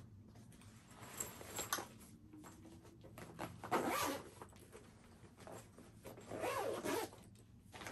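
Zipper on a fabric toiletry bag being pulled closed in a few short strokes, the longest about four seconds in and another near the end.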